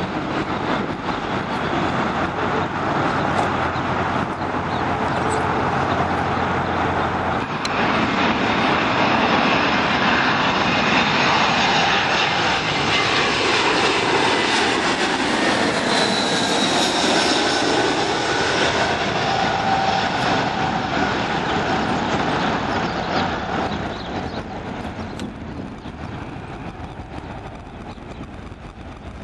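Jet engines of an Airbus A320-family airliner on landing approach, passing low overhead. The rushing roar and whine swell to a peak about halfway through, drop in pitch as the jet goes by, then fade.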